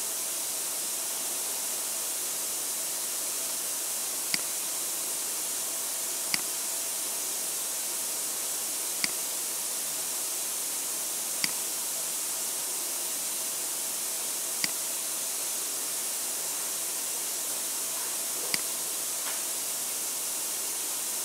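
Steady high-pitched hiss with six sharp single clicks a few seconds apart.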